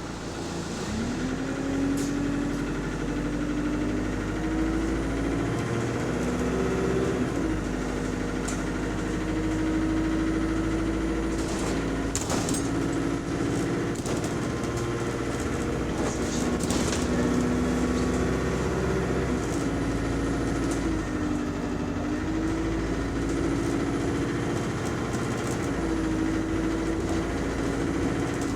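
Bus engine running under way, its note rising early on and then stepping up and down several times as the automatic gearbox changes gear. Now and then a sharp click or rattle. The uploader reports that this engine has a rod knock.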